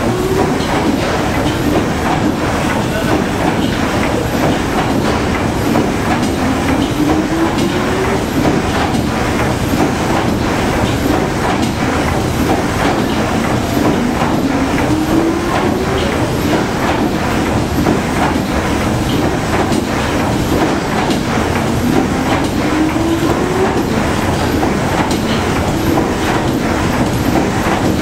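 PS Waverley's three-cylinder triple-expansion diagonal steam engine running, a steady mechanical clatter of cranks and rods turning. A rising whine sweeps up about every seven to eight seconds above it.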